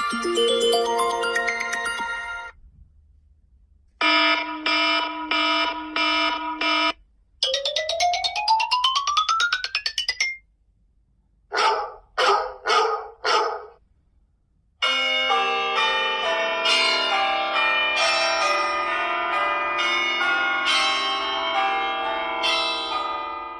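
A run of iPhone ringtones played one after another. First the end of a chiming melody, then a chime repeated about twice a second, then a quick rising sweep, then four short swelling tones. It ends with a longer melodic ringtone of layered chords.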